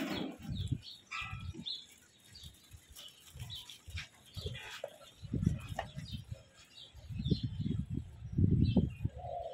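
Sheep-pen ambience: small birds chirp in short, scattered calls over the low rustling and bumping of a flock of dumba sheep moving about. The low noise swells in three bouts in the second half.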